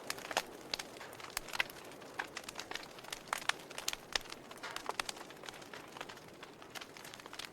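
Logs burning in a fireplace: irregular sharp pops and snaps, several a second, over a soft steady hiss of the flames.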